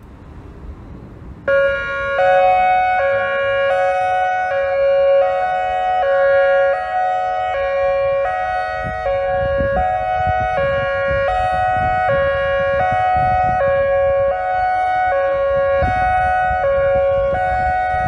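ACA Alertronic 4000 electronic outdoor warning siren sounding its hi-lo signal: two pitches alternating about twice a second, starting about a second and a half in. A low rumble runs underneath.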